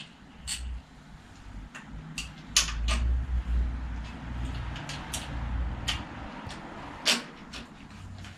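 Scattered sharp clicks and light knocks of a bicycle being worked on by hand in a repair stand, parts at the rear rack and light being handled, over a low rumble that swells in the middle.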